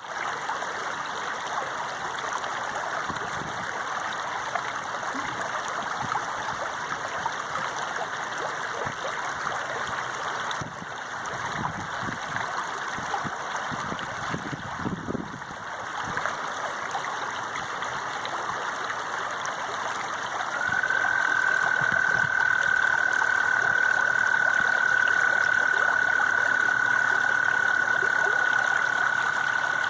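Flowing water running steadily with an even rushing hiss. About two-thirds of the way in, a single steady high tone joins it and holds to the end, and the sound gets louder.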